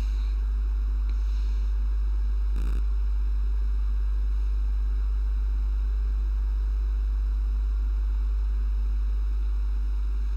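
A steady low hum with faint hiss, and one soft knock between two and three seconds in.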